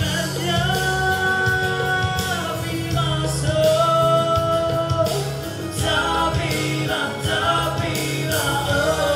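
A solo singer sings a pop song into a handheld microphone over a backing track, holding long notes, heard through the stage sound system.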